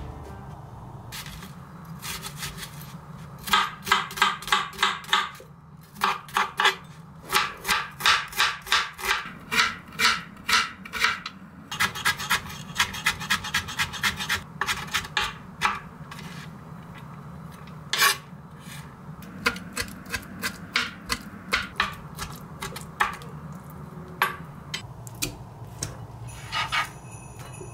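Chef's knife chopping carrots on a cutting board: quick runs of sharp knocks at about four chops a second, then sparser single knocks in the last part.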